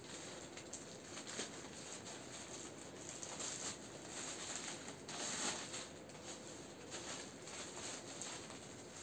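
Faint rustling and crinkling of gift wrapping as a present is unwrapped by hand, with small scattered crackles.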